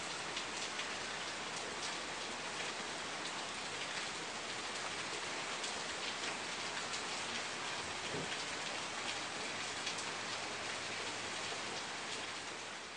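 Rain sound effect: steady rain falling with scattered drop ticks, starting to fade out near the end.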